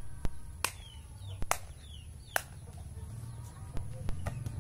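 A volleyball being struck again and again in a rally: sharp slaps of hands and forearms on the ball, about seven times, unevenly spaced. Faint short bird chirps sound in the background.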